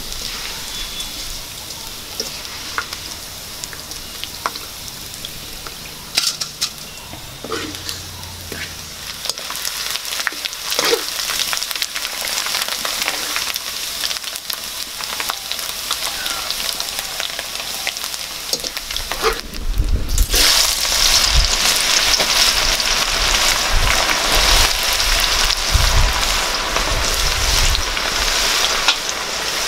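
Hot oil sizzling in a wok as shredded banana blossom deep-fries, with a few light clicks of a wire skimmer against the pan. About two-thirds of the way through the sizzle cuts off and returns louder and denser as sliced onions fry in the oil.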